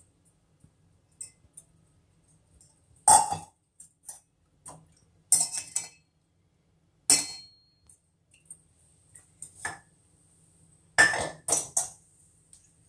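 Stainless-steel kitchenware clinking and knocking against a steel mixer-grinder jar as soaked, drained dal is tipped and tapped into it: scattered sharp knocks, one about seven seconds in leaving a brief metallic ring, and a quick cluster of three near the end.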